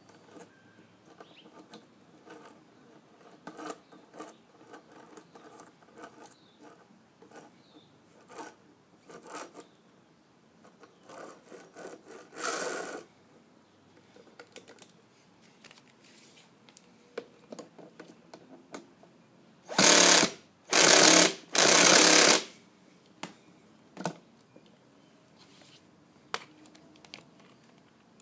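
Small clicks and rattles of the model bike being handled, then three short bursts of a starter spinning the 1/5-scale nitro engine over, each cut off after under a second, with the engine not catching. The owner reports that the clutch and drivetrain jam when it is cranked.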